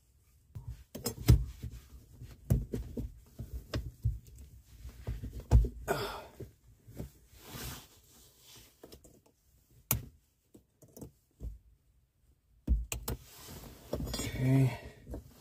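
Irregular metallic clicks, knocks and rattles as a Jeep Cherokee's steel transfer-case shift lever and its linkage are handled and worked into the floor bracket, with rustling between the knocks.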